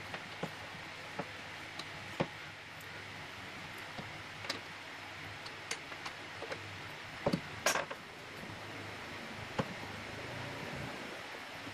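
Light clicks and ticks of an Allen key turning a threaded insert into a plywood bracket, with a quick cluster of louder clicks about seven and a half seconds in, over a steady hiss.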